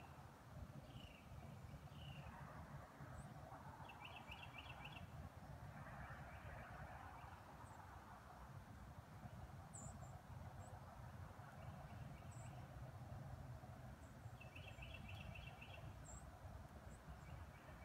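Faint bird calls: scattered short chirps and two quick trills of rapidly repeated notes about ten seconds apart, over a low steady rumble.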